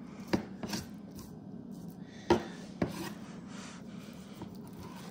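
Knife trimming a venison roast on a plastic cutting board: the blade scrapes through the meat and knocks sharply against the board a few times, loudest a little past two seconds in.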